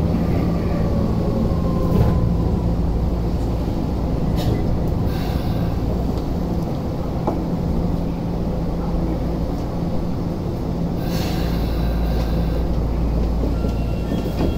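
Tokyu 8500 series subway train heard from inside the car as it brakes into a station. A faint motor whine falls in pitch in the first few seconds over a steady running rumble and hum, and the train comes to a stop near the end.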